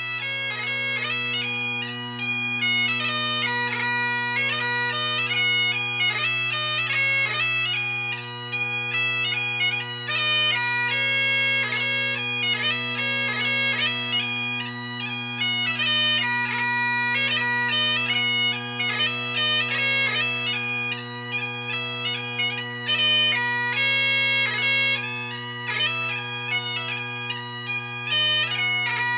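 Bagpipes playing a quick melody over steady low drones.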